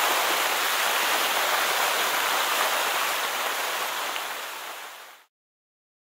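Steady rush of a waterfall's falling water, fading out and gone a little over five seconds in.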